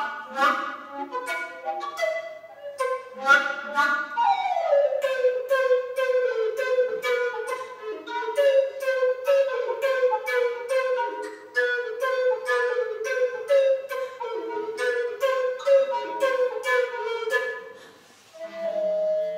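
Wooden tenor recorder played solo: fast, sharply tongued runs and many quick repeated notes. Near the end the playing drops away for a moment, then comes back as a held note with a second, lower tone under it.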